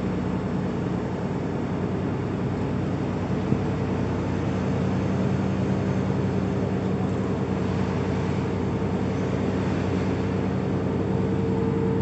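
Steady drone of a moving vehicle heard from inside its cabin: engine hum and running noise, with a low hum that strengthens slightly partway through.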